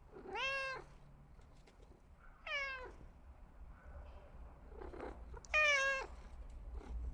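Domestic cat meowing three times, a couple of seconds apart, each meow about half a second long and falling in pitch at the end; the last is the loudest.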